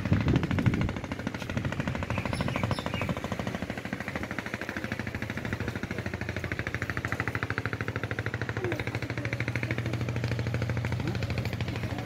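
An engine running steadily, with a fast, even chugging beat.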